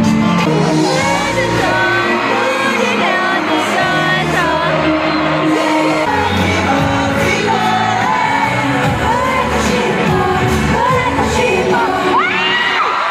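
Loud live pop music with singing from a K-pop boy band on stage, with fans shouting and screaming over it.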